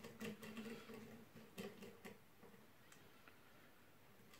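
Faint light metal clicks from a screwdriver turning a barrel screw into a Sauer 303 rifle's receiver: a few ticks in the first two seconds and one near three seconds, over a faint hum that fades about halfway.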